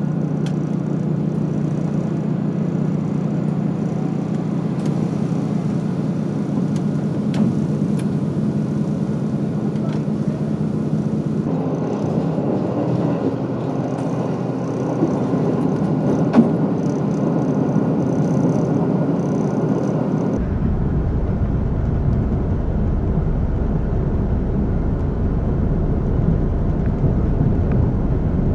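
Kiha 183 series diesel railcar heard from inside the passenger cabin. For the first ten seconds or so there is a steady engine hum; then the running noise of the train on the rails grows broader. About two-thirds of the way through, the sound switches abruptly to a deeper rumble.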